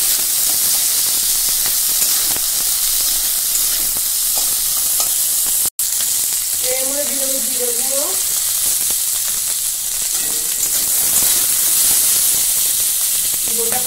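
Mixed vegetables (cauliflower, green beans, carrot and peas) sizzling steadily as they fry in hot mustard oil in an aluminium kadai, turned with a metal spatula. The sizzle drops out for an instant about six seconds in.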